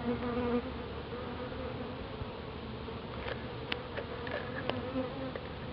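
Honeybee colony in a top-bar hive buzzing steadily, heard from just under the open combs. A few light clicks come in the second half.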